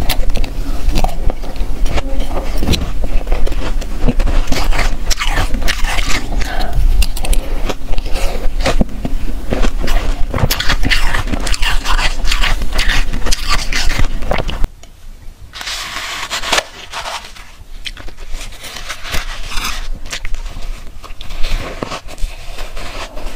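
Crunching and crackling of powdery freezer-frost ice being bitten and chewed, with spoon scrapes against a metal bowl. About fifteen seconds in it drops suddenly quieter and goes on as softer crunching of flavoured shaved ice.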